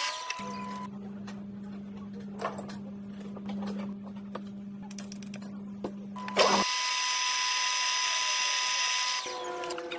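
Metal lathe running with a steady motor hum. About two-thirds of the way in it turns suddenly louder, with a high-pitched whine and hiss as a drill bit held in the tailstock chuck cuts into the spinning metal bar. Near the end it drops back to a lower hum.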